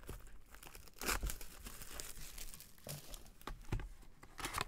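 Plastic shrink wrap being torn and peeled off a sealed trading card box, crinkling throughout, with louder crackles about a second in and near the end.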